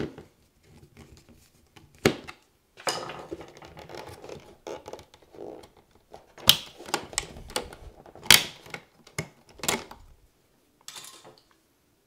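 Plastic clicks, snaps and scraping as the frame of a Leviton screwless wall plate is pried and unscrewed off the wall devices with a screwdriver. There is one sharp snap about two seconds in, with rustling after it, then three sharper clicks between about six and ten seconds in.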